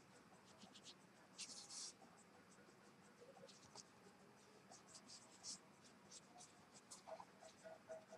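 Faint strokes of a brush pen on paper: many short scratchy strokes, with a longer stroke about a second and a half in.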